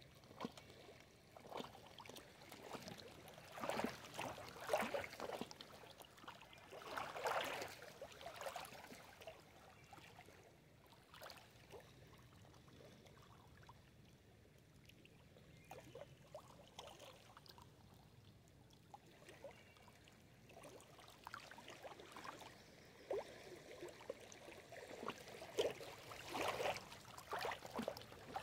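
Small lake waves lapping and splashing over stones at the water's edge, in irregular washes, with a calmer stretch in the middle.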